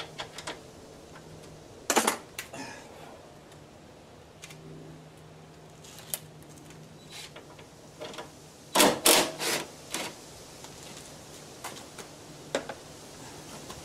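Scattered clicks and clatter of hand tools and sockets being handled, with a louder cluster of four or five sharp clicks about nine seconds in.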